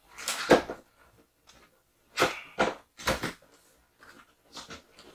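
Cardboard box being handled: a series of short, uneven scrapes and rubs as hands slide over and grip the cardboard.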